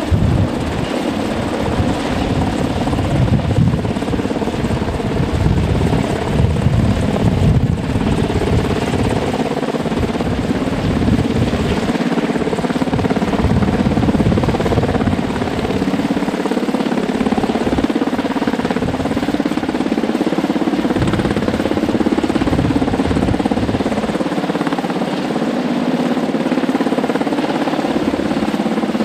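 Black Hawk medevac helicopter hovering overhead: steady, loud rotor and turbine noise, with a low rumble that swells and drops away at intervals.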